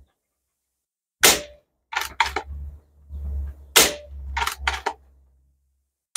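Hatsan Flash 101 PCP air rifle firing twice, about a second in and again near four seconds, each report with the pellet's smack into a breeze block. Smaller clicks and knocks come between and after the shots.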